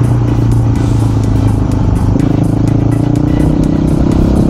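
Single-cylinder four-stroke engine of a Yamaha WR250R breathing through a YZ250F silencer, running under way at a fairly steady pace, with the note changing about two seconds in.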